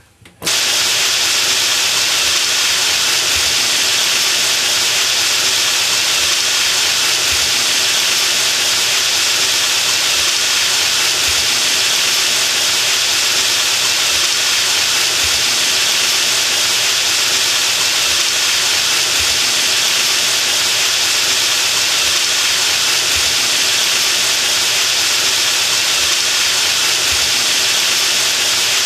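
Shower running: water spraying from a showerhead in a steady, loud hiss that starts suddenly just after the beginning.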